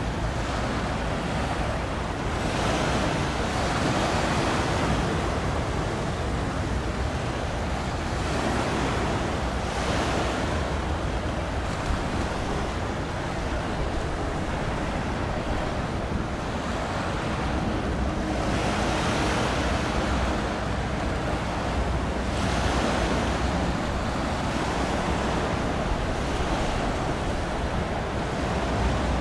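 Sea water washing and wind buffeting the microphone: a steady rushing that swells and eases every several seconds, with a faint low hum underneath.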